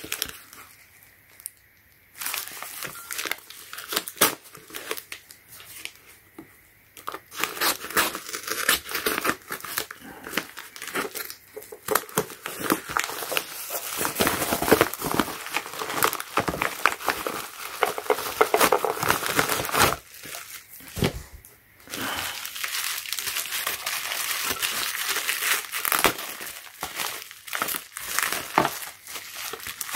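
A plastic mailer envelope is torn open and crinkled by hand, then bubble wrap rustles and crackles as a wooden box is unwrapped. The crinkling starts about two seconds in and goes on in dense bursts with a few short pauses.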